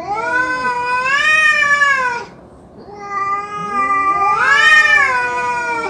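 Ginger cats in a face-off yowling at each other: two long, wavering yowls, the first fading out about two seconds in and the second starting about a second later with another voice rising under it. This is the drawn-out warning yowl of a territorial standoff before a fight.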